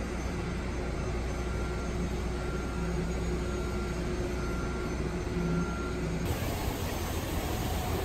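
Steady outdoor background rumble with a faint mechanical hum. The sound changes abruptly at a cut about six seconds in.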